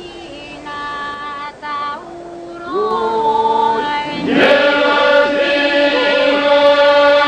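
Albanian iso-polyphonic folk singing from Gjirokastër. A lead voice sings an ornamented, gliding line, and a second voice joins about three seconds in. Around four seconds in, the whole group enters holding a steady drone under the melody, and the singing grows louder.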